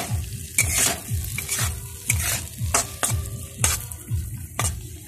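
Steel spatula scraping and stirring thick cashew-and-tomato masala paste around a metal kadhai, about two strokes a second, while the paste fries with a light sizzle.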